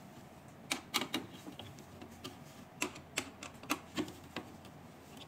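Screwdriver and screws clicking and tapping against the metal casing and plastic holder while the holder is screwed onto the machine: about eight sharp clicks, irregularly spaced.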